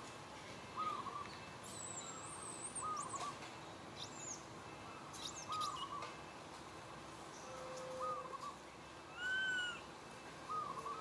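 A soft hooting bird call repeats about every second and a half among high bird chirps. Near the end comes a louder rising-and-falling cry from an infant long-tailed macaque calling for its mother.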